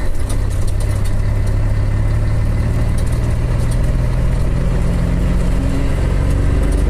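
Scania 113 truck's six-cylinder diesel running steadily at low road speed, heard from inside the cab as a low, even drone.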